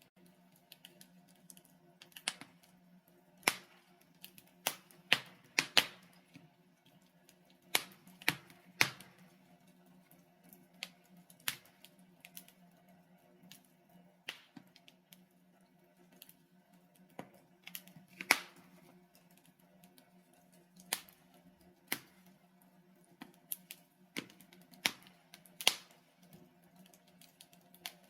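Burning logs in a fireplace crackling: irregular sharp pops and snaps, some loud and some faint, with uneven gaps between them, over a faint steady low hum.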